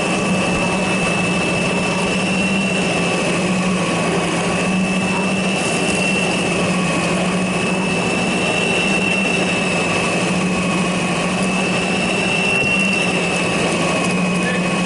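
Lindhaus LS38 battery-powered vacuum sweeper running steadily during a pickup test: a steady high whine over a low hum from its suction motor and counter-rotating brush rollers.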